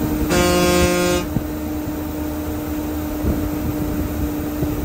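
A bus horn sounds once for just under a second, about half a second in, over the steady drone of the bus running at highway speed, heard from inside the cabin.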